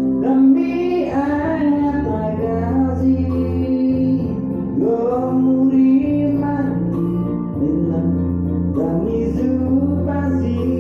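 A voice singing a song over instrumental backing with steady held notes, in three sung phrases separated by short instrumental pauses.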